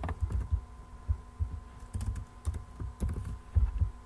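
Computer keyboard keystrokes and clicks, irregular and spaced out, with dull low thumps from the key strikes. A faint steady electrical hum lies underneath.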